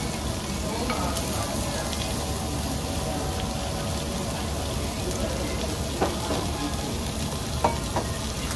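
Meat sizzling steadily on a tabletop Korean barbecue grill plate, with a metal spoon clinking against stainless-steel rice bowls about six seconds in and twice near the end. Faint background music under it.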